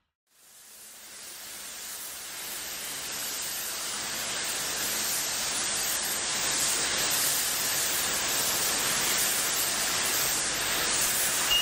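A steady hiss that fades in from silence over the first couple of seconds, then holds evenly.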